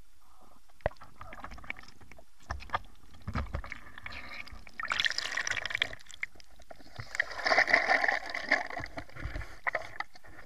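Water sounds: scattered sharp clicks and knocks, then two bursts of gurgling, rushing water, the first about five seconds in and a louder one about seven to nine seconds in.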